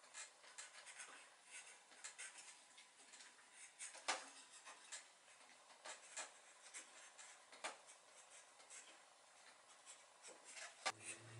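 A knife shaving and scraping a small wooden stick by hand: faint, irregular scratchy strokes with a few sharper clicks, the loudest about four seconds in and again near eight seconds.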